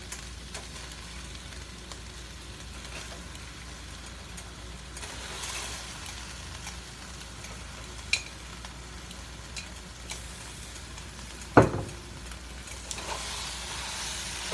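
Food sizzling in a pot as boiled rabbit pieces go back in on frying onion, pepper, tomato paste and spices, with light clicks of metal tongs against a glass bowl and one sharp knock about two-thirds of the way through.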